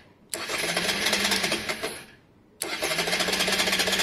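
Electric starter cranking the Honda Varadero 125's 125cc V-twin in two bursts of about two seconds each. The first starts just after the beginning and the second near the middle, and the engine does not fire up: it is hard to start when warm, which the owner puts down to carburettor idle tuning.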